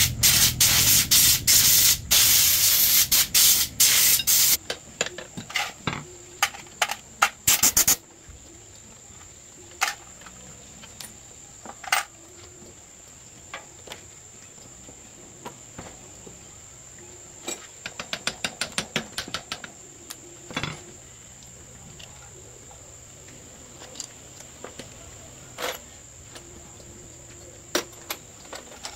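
A loud spraying hiss for the first four seconds or so, then scattered light clicks and taps of hand work on metal parts, with a quick run of ticks a little past halfway. Crickets chirr steadily at a high pitch underneath.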